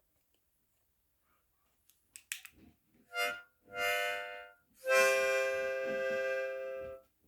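Harmonica blown in chords: two short chords, then one long held chord lasting about two seconds.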